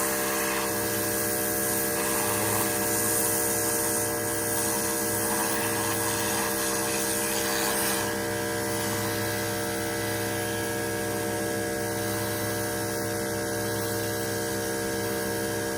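Pressure washer running steadily at a constant pitch, a droning hum with a hiss above it, while the edges are trimmed.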